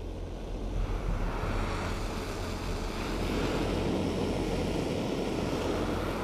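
A gas torch flame burning with a steady rushing noise, with a low steady hum underneath.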